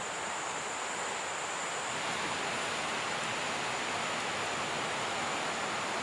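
Steady forest background: an even hiss with a faint high-pitched whine held steady above it.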